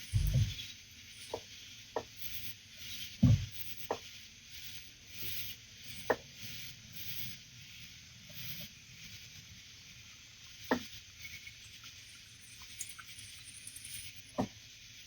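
Scattered light knocks and clicks, with a low thump just after the start and another about three seconds in, over a steady high-pitched hiss.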